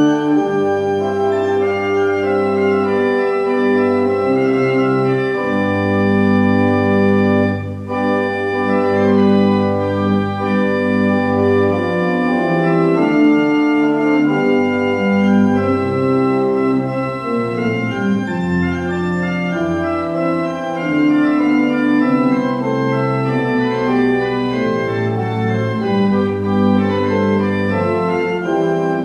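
Organ playing the postlude to the service: sustained chords over long-held bass notes, the harmony moving slowly, with a short break between phrases about eight seconds in.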